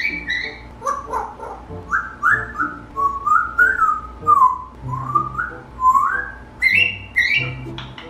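African grey parrot whistling a string of short gliding notes, some rising and some falling, mixed with clicks, over background music.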